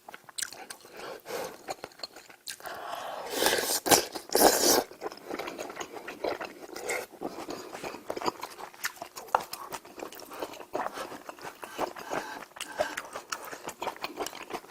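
Close-miked eating sounds: a person chewing with wet mouth clicks and smacks, with a louder, noisier stretch about three to five seconds in.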